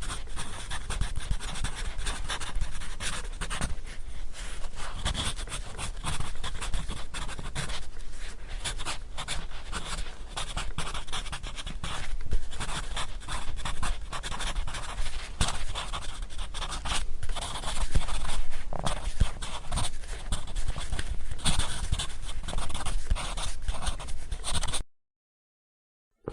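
Pencil scratching and rubbing in rapid, continuous, irregular strokes, briefly louder about twelve and eighteen seconds in.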